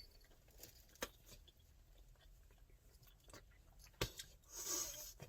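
Chewing gum cracking in a mouth: two faint sharp snaps, about a second in and about four seconds in, then soft wet mouth noise near the end.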